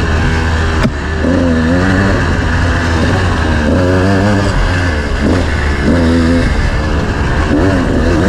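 Off-road motorcycle engine revving under hard riding, its pitch rising and falling several times with the throttle over a steady low drone. A sharp knock about a second in.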